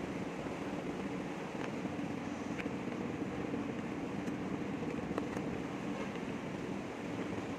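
Steady mechanical hum with a few faint clicks.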